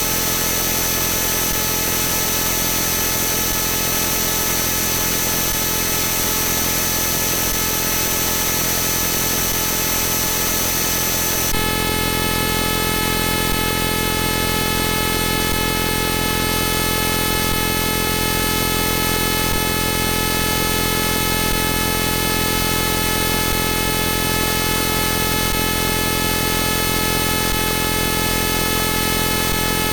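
Dense, harsh electronic drone of many steady tones stacked over a hiss, a layered synthesized sound effect. It holds steady at one level, and its mix of tones changes abruptly about twelve seconds in.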